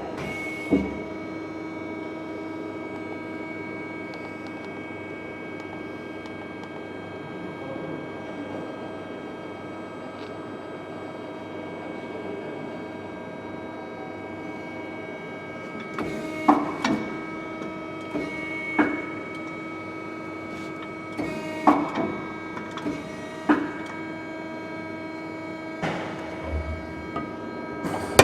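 Hwacheon Cutex 160A CNC turning and milling center running with a steady hum and whine at several fixed pitches. Over the last twelve seconds, about ten sharp mechanical clacks come at irregular intervals.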